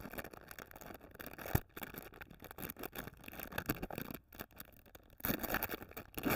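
Foil-lined plastic candy wrapper crinkling and tearing as it is opened by hand, in irregular crackles, with a sharp tap about a second and a half in and a louder burst of crinkling near the end.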